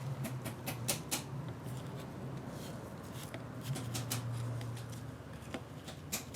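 Irregular sharp clicks and light scraping as hands and a tool work at a stubborn spring circlip on a manual gearbox shaft.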